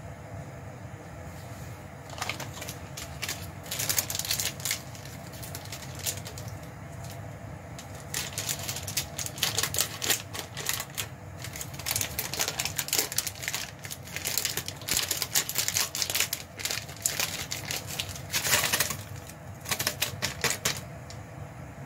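Crinkling plastic packaging of processed cheese slices, handled and peeled open in irregular bursts of crackling, over a steady low hum.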